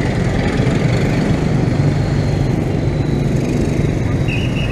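Close street traffic dominated by small motorcycle engines, running in a steady low drone.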